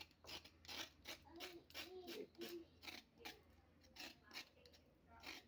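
A blade scraping the skin off a white radish (mooli) in short, quick strokes, about three a second.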